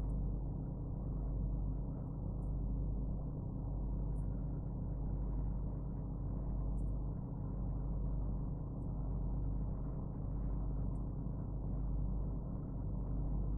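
A steady low hum made of several fixed low tones, unchanging throughout, with a few faint short high ticks every second or two.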